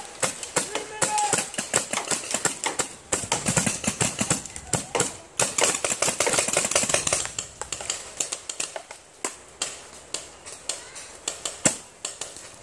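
Paintball markers firing strings of rapid pops, several a second, densest in the middle and thinning to scattered single shots near the end.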